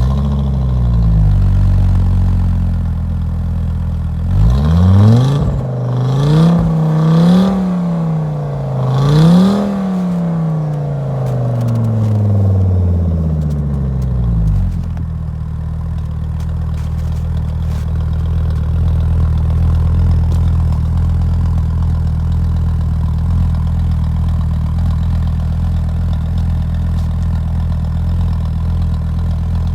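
Volvo S70 T5's turbocharged five-cylinder engine idling through a custom 3-inch/2.5-inch performance exhaust with a Eurosport Tuning muffler. A few seconds in it is revved several times in quick succession, then settles back to a steady, low idle rumble.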